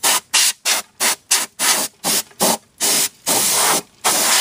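Can of compressed air hissing through its straw nozzle, blowing dirt out of a car's coil spring seat: about a dozen short blasts, roughly four a second, then a few longer blasts of about half a second near the end.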